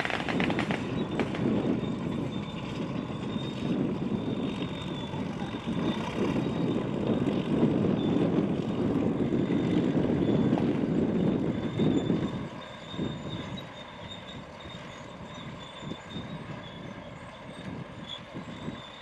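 Engines of WWII jeeps driving, a steady rumble that is loud for about twelve seconds, then falls away as they pull up.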